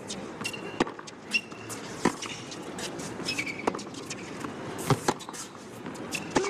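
Tennis rally on a hard court: racket strikes on the ball and ball bounces, a sharp hit about every second, with short high squeaks of tennis shoes on the court surface.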